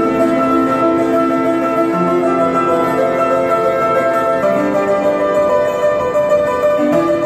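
Grand piano being played, held chords and notes ringing on, with the harmony changing about four and a half seconds in.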